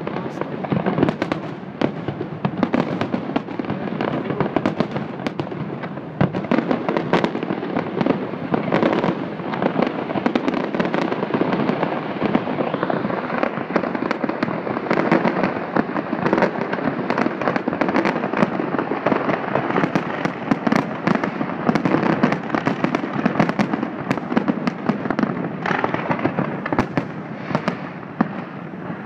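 Fireworks display at full tilt: a dense, continuous barrage of bangs and crackling shells bursting one over another, easing off slightly near the end.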